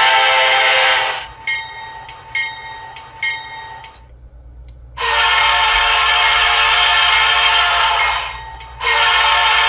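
A Nathan K5LA five-chime locomotive air horn holds a chord that cuts off about a second in, followed by three short high pings. After a brief pause, a Nathan P3 three-chime air horn sounds a long blast of about three seconds, then starts a second blast.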